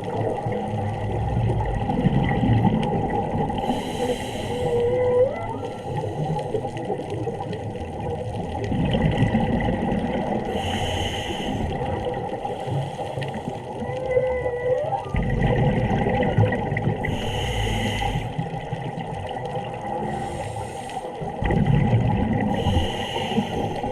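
Humpback whale song heard underwater: short upward-sweeping calls repeat a few times over a low rumbling sea background. Hissing bursts come every few seconds.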